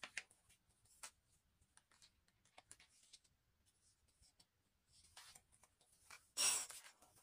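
Pages of a large photobook being turned by hand: faint paper rustles and light clicks of fingers on the pages, with one louder rustle of a page turn about six and a half seconds in.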